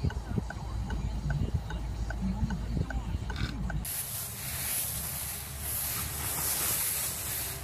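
A sheep's low grunting calls over a faint regular ticking. About four seconds in, this gives way to a steady crisp rustle of dry fallen leaves as a pug ploughs through them.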